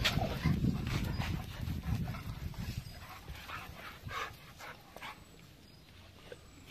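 Pit bull dog making a few short sounds, over a low rumbling noise that fades out after about the first two seconds.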